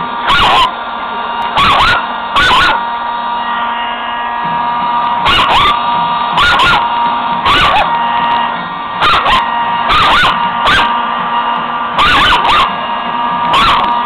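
Dog barking repeatedly, in single and double barks a second or so apart, at a running blow dryer. The dryer's steady whine carries on underneath the barks.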